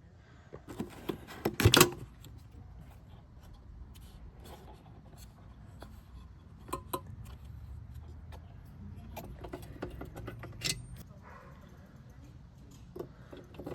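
Scattered clicks, rattles and scrapes of the Hiace's plastic headlamp unit and H4 bulb being handled and unclipped, with a short burst of loud clatter about a second in.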